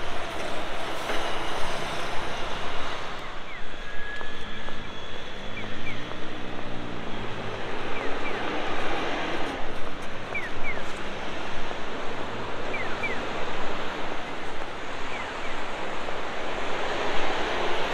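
Steady road traffic at a busy intersection, with an electronic pedestrian crossing signal chirping in pairs of short falling chirps about every two and a half seconds while the walk light is green. A vehicle engine passes by about six seconds in.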